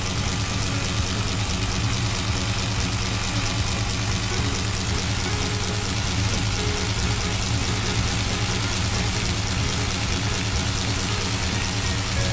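Jackhammer running steadily without a pause: a dense, rapid mechanical hammering over a heavy low hum.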